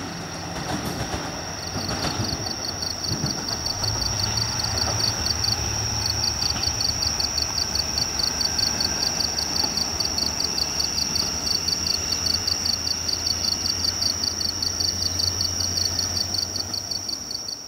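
A JR Kyushu KiHa 200 series diesel railcar passing, with a few wheel clicks over rail joints in the first seconds. A low, steady diesel engine hum then goes on from the tracks until near the end. Over it runs a steady high-pitched whine with rapid high chirping pulses, several a second.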